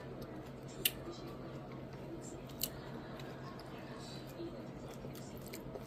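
Quiet eating sounds: a few sharp clicks, the clearest about one second and two and a half seconds in, over a steady low hum.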